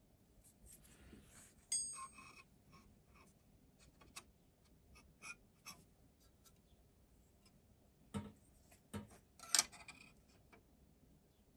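Light metal scrapes, clicks and knocks as a steel model locomotive frame plate is handled and slid into its buffer beams on a steel machine table. A sharp clink with a brief metallic ring comes about two seconds in, and the loudest knocks come at about eight and nine and a half seconds.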